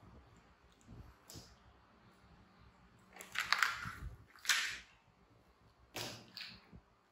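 Short scraping and rustling handling noises on a tiled floor as baby macaques play around a plastic toy loader and its cardboard box: a cluster of scrapes in the middle and one more shortly before the end.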